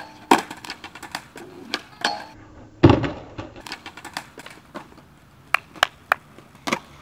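Skateboard clattering and knocking on a metal handrail, then one heavy slam about three seconds in as the skater bails onto concrete. A few sharp clacks of the loose board follow near the end.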